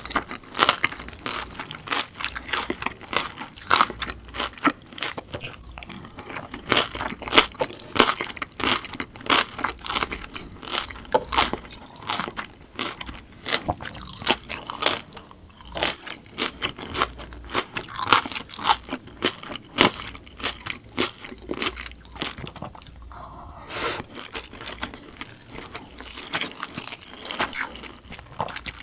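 A person chewing a mouthful of crunchy food, with many sharp, irregular crunches.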